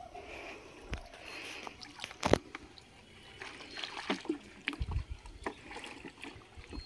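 Water splashing and sloshing as a plastic bucket is dipped into shallow pond water and tipped out, with scattered sharp knocks, the loudest a little over two seconds in.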